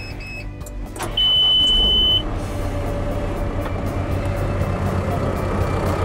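Cat 432F2 backhoe loader starting up: two short electronic beeps, then a loud steady high beep lasting about a second, after which the four-cylinder diesel engine is running steadily.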